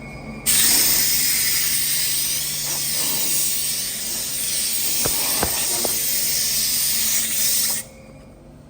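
Compressed air hissing in one continuous blast for about seven seconds, starting and stopping abruptly, with a few faint clicks partway through.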